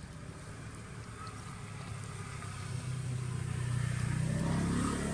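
A motor vehicle passing on a nearby road: a low engine hum that grows louder over the second half and peaks near the end.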